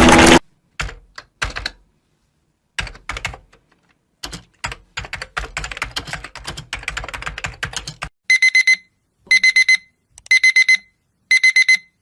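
A loud noise cuts off half a second in. Computer keyboard typing follows as scattered clicks. About eight seconds in, a digital alarm starts beeping in quick groups of four, roughly once a second, marking the end of the timed typing session.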